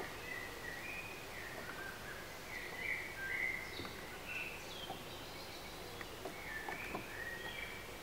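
Songbirds singing: a steady run of short, high chirping and warbling notes, loudest a little past the middle, over a faint steady outdoor background hiss.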